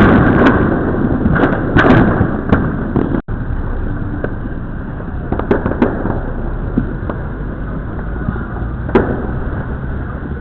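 Fireworks and firecrackers going off: a loud blast dies away at the start, then scattered sharp cracks and pops sound over a constant low rumble of more distant bursts.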